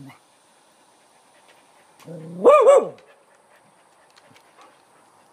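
A dog gives a low growl that rises into one drawn-out, wavering bark about two seconds in, a warning at something it has seen in the woods.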